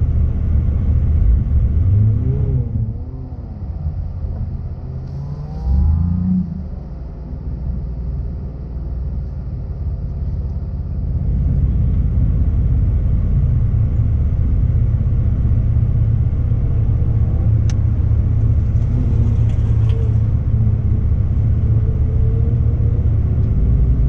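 Car engine idling steadily, heard from inside the cabin of a Pontiac G6 GT, with a few short rising and falling revs in the first several seconds. A single sharp click comes about two-thirds of the way through.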